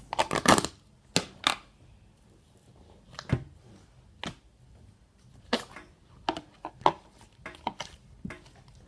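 A large slime being squished and stretched by hand, giving irregular sharp pops and clicks, a dozen or so, with the loudest cluster in the first second and a half.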